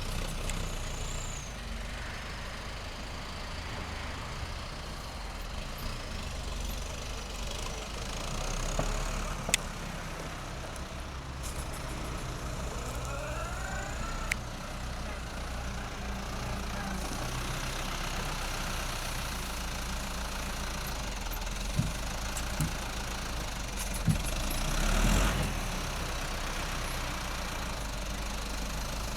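Machinery running steadily, with a few sharp knocks and a brief swell in noise about three-quarters of the way through.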